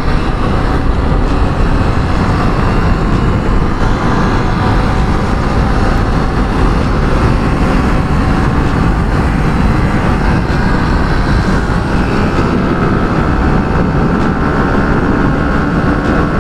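Wind rushing over the helmet microphone and the engine of a sport motorcycle cruising at around 85 km/h. From about ten seconds in a faint engine tone rises slowly in pitch as the bike speeds up.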